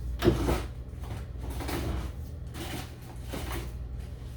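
Rummaging in a kitchen cupboard: boxes and plastic bags are handled and moved in several short bursts, with one knock about a quarter of a second in.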